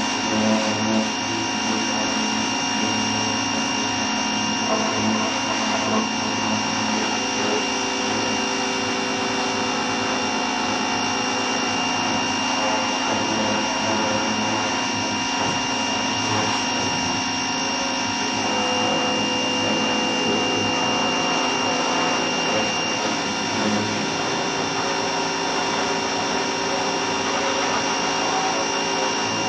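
A vacuum cleaner running steadily, its motor whine holding one pitch.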